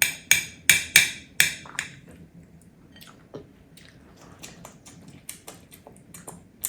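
Sharp clinks of a utensil against a dish, about six in the first two seconds with a short ring to each. Then come fainter scattered taps and eating sounds.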